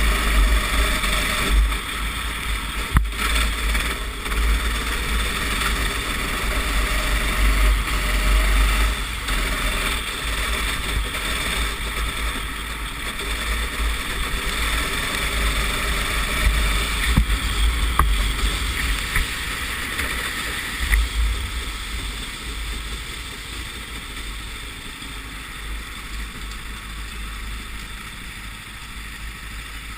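Onboard sound of a racing kart on a wet track: the engine running under heavy wind buffeting on the microphone, with water spray hiss. It grows quieter over the last several seconds.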